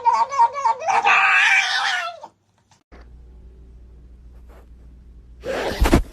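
A cat yowling loudly for about two seconds, then a short break and a faint low hum, with a loud sudden noise shortly before the end.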